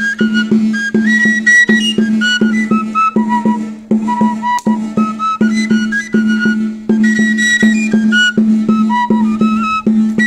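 Wind band playing a lively traditional tune: a high melody of quick notes over a steady beat.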